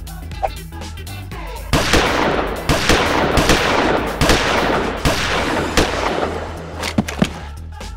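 Rapid machine-gun fire sound effect, a dense run of shots starting about two seconds in and lasting about four seconds, over background music with a steady beat.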